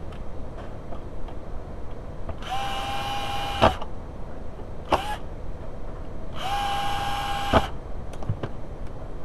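Cordless drill-driver running in three short runs: about a second, a brief blip, then about a second more. Each is a steady motor whine, and the two longer runs end in a sharp click as the screw seats or the trigger is let go.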